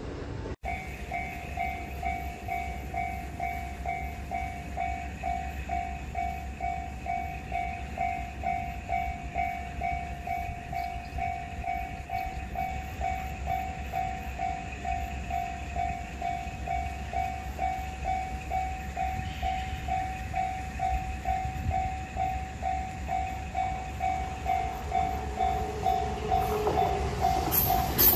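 Japanese level-crossing warning bell ringing steadily, an even electronic ding about twice a second. Near the end the rumble of a 787-series electric train passing over the crossing swells under the bell.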